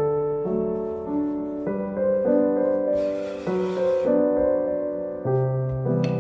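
Background piano music, a gentle melody of separate notes changing every half second or so, with a brief rustling noise about three seconds in.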